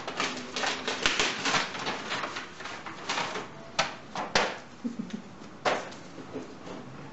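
Christmas wrapping paper being torn and crumpled off a gift box: a dense run of rustling and crackling, thinning to a few sharp crackles in the second half.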